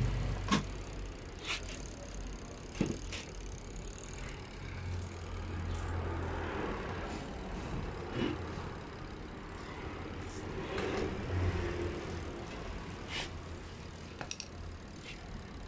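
Scattered knocks and clicks of an automatic washing machine being handled and turned to get at its underside, over a low hum that comes and goes.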